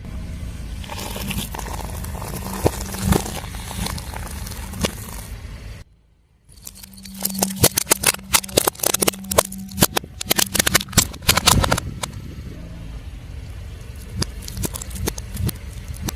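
A car tyre rolling over and crushing crunchy objects: crackling and crunching over a low engine hum, then after a brief break a dense run of sharp cracks and snaps for several seconds.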